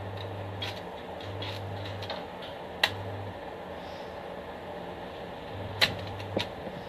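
Stick welder working in short spells: a low hum comes and goes four times with faint crackle as the electrode is struck on the steel. Sharp clicks about 3 s in and twice near the end.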